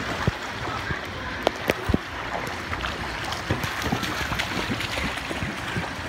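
Steady rush of water in a shallow wading pool with wind buffeting the microphone, broken by a few short sharp knocks.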